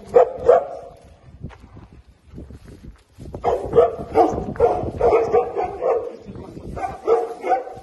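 Small dog barking in quick runs of short, yappy barks: a couple right at the start, then a longer string from about three seconds in and another burst near the end.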